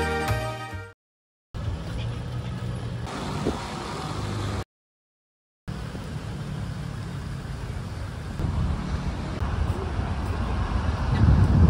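Background music fading out, then city street ambience with road traffic running steadily. Two brief silent cuts break it, and a low rumble swells near the end.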